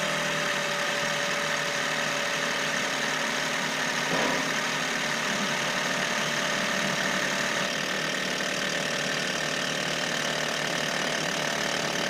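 Key-on injector buzz test on a Ford 6.0 Power Stroke V8 diesel: the injectors buzz in a steady, even sound with no delay or dropouts. The owner takes this to mean the injectors sound pretty consistent and are not sticking.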